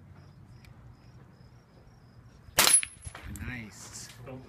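A single suppressed pistol shot from a .45 ACP FN FNP-45 fitted with a SilencerCo Osprey 45 suppressor, about two-thirds of the way in, followed by a fainter tail lasting about a second. The can is being shot wet, with wire-pulling gel inside, which makes it quieter.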